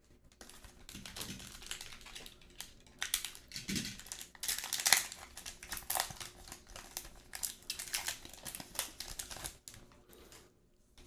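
Foil wrapper of a hockey card pack crinkling and crackling in quick irregular bursts as it is opened and handled, stopping about ten seconds in.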